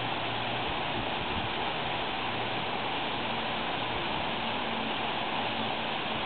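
Steady rushing noise with no distinct events, and a faint low hum joining about halfway through.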